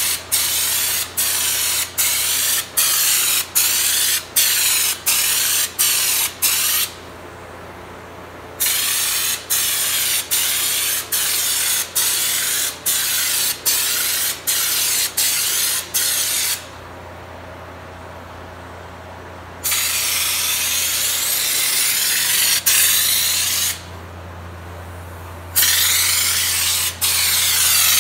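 Compressed-air undercoating gun spraying undercoating from a can onto a car's underside. It hisses in quick bursts of about half a second as the trigger is pulled and released, then pauses for a few seconds twice. A longer steady spray of about four seconds follows, and more short bursts come near the end. A steady low hum runs underneath.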